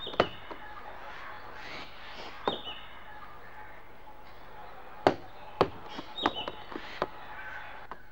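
A football bouncing and being kicked on paving, making a series of sharp thuds at uneven intervals. Several of the thuds carry a brief high ring.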